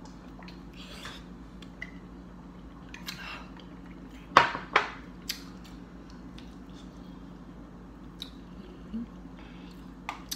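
Close-up eating sounds of a person biting and chewing a boiled potato: wet chewing and mouth smacks with scattered clicks, the loudest two close together about four and a half seconds in.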